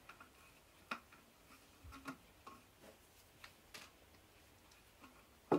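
Faint, scattered ticks and light rustles of twine being wound round the neck of a clear plastic bottle, fingers pressing and tapping on the plastic, about half a dozen small clicks spread unevenly.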